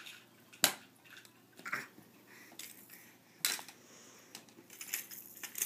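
Toy mini hockey stick knocking against a small ball and other toys: a series of sharp clacks, the loudest about half a second in, then more around two, three and a half and five and a half seconds.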